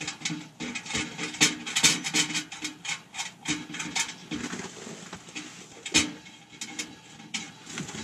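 Stainless steel wood-stove flue pipe and heat shield being handled and fitted by hand: a run of light metallic clicks, knocks and scrapes, with a sharper knock about six seconds in.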